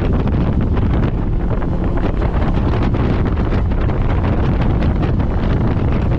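Wind buffeting the microphone in a steady low rumble, over a 50 hp outboard motor running at speed.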